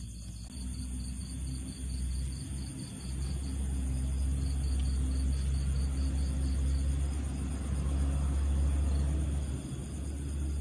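A low rumble that builds over the first few seconds, holds, then eases off near the end. Behind it runs a steady, fast-pulsing high chirping of night insects.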